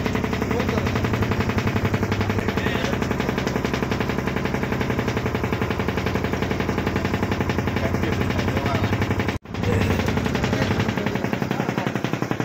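Fishing boat's diesel engine running steadily, a fast, even knocking beat with a low hum beneath it. The sound breaks off for an instant about nine seconds in.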